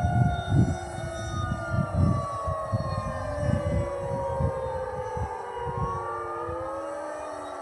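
Several outdoor tornado warning sirens, Federal Signal Thunderbolts and 2001s among them, sounding together from a distance during a siren test. Their overlapping tones slowly rise and fall against one another.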